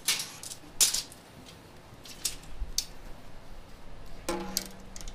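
A tape measure being pulled out and laid across a snare drum's head while the drum is handled: a few sharp, separate clicks and knocks.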